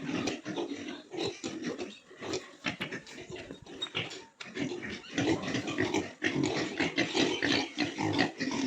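Pigs in a pen grunting continually in short, irregular calls, growing busier about halfway through.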